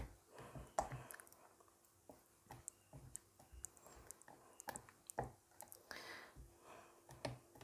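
Faint, irregular squishes and light clicks of a spatula stirring fragrance oil into thick, fast-tracing linseed oil soap batter in a plastic tub.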